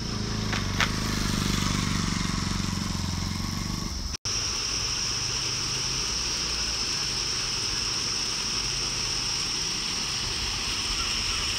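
Motorcycle engine running and picking up for about four seconds, with two short clicks under a second in. It cuts off abruptly. A steady high-pitched insect drone then follows over a faint low rumble.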